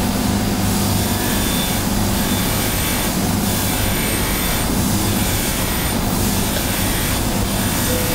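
Electric polishing motor running steadily with a low hum as a silver cane cap is buffed on its spinning cloth wheel. Over the hum is a hiss from the buffing that swells and eases about every second and a half.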